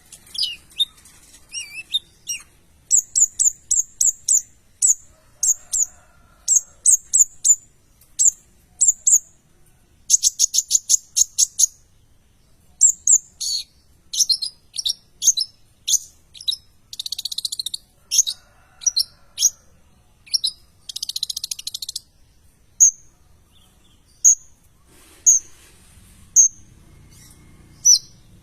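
A konin (kolibri ninja sunbird) singing in full voice, with strings of sharp high chirps, fast trills and two buzzy rattling trills, then single spaced chirps near the end.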